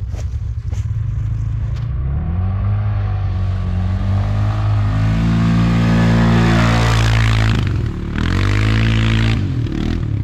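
CFMoto quad's single-cylinder engine revving under load as it climbs a leaf-covered slope, rising in pitch about two seconds in and loudest as it passes close, then easing off briefly and revving again near the end.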